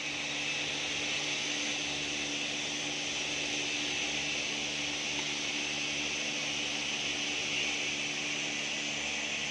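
Steady mechanical hum and hiss of a running machine, such as a fan or motor, with no change in level.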